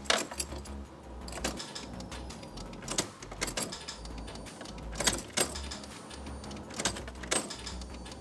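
Car ignition key being turned on and off repeatedly, clicking in pairs about every two seconds with the keys jangling, as the ignition is cycled to run the electric fuel pump and build fuel pressure.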